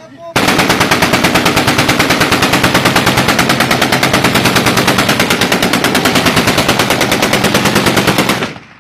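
Automatic rifle fire: one long unbroken burst of rapid, evenly spaced shots lasting about eight seconds, cutting off near the end.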